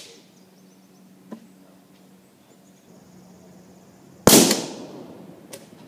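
A charge of hydroxy (HHO) gas in a plastic water bottle igniting with one sharp bang about four seconds in, its echo trailing off over about a second. The clip opens on the fading echo of an earlier bang, with a faint click a little over a second in.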